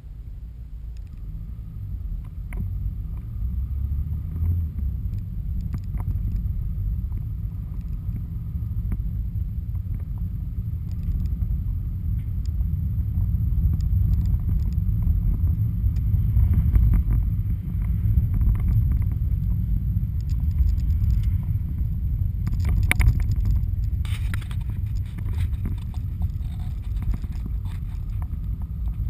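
Car driving, heard from inside the cabin: a steady low engine and tyre rumble that grows louder over the first few seconds as the car gets moving. A few light clicks or knocks, the sharpest about three-quarters of the way through.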